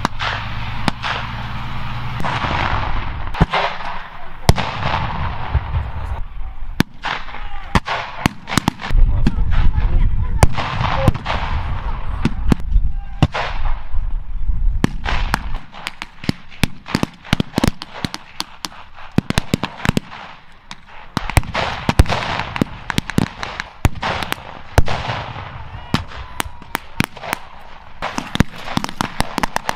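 Battle gunfire from blank-firing weapons: a rapid, irregular stream of shots with heavier pyrotechnic blasts among them. A low engine rumble runs underneath for about the first half and then drops away.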